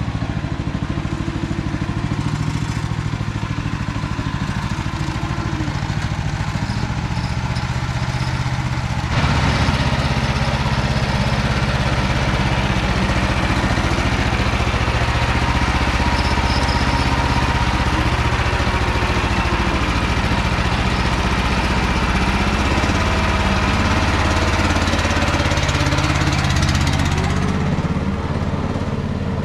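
Engine of an MT8-070 Mini two-wheel walking tractor running steadily while ploughing. About nine seconds in it gets louder and fuller, as under heavier load, and eases back near the end.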